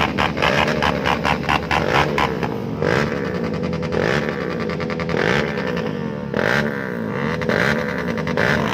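Motorcycle engines revving in repeated throttle blips, each rising and falling in pitch, from about three seconds in. Before that, a fast, even pulsing beat.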